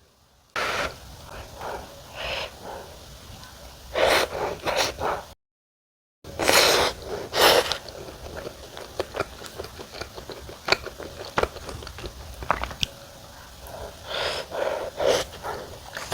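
Close-miked eating of a hot slice of wood-fired sweet potato pizza: sharp huffs of breath over a hot mouthful, then chewing with many small wet clicks. The sound drops out completely for under a second about five seconds in.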